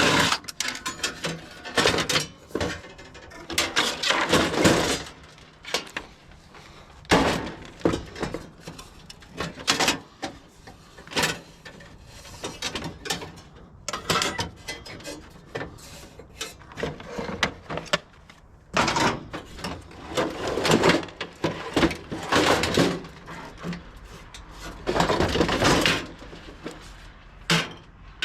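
Irregular knocks, clanks and scrapes of metal parts being worked loose by hand while a water heater is taken apart, with short clusters of sliding and banging.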